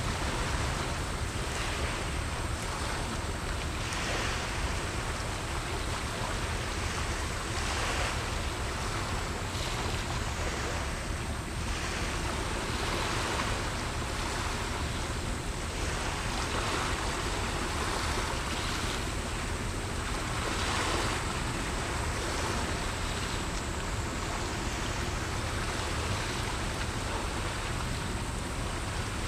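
Small sea waves washing in and out in a steady wash, swelling every few seconds, with a low wind rumble on the microphone.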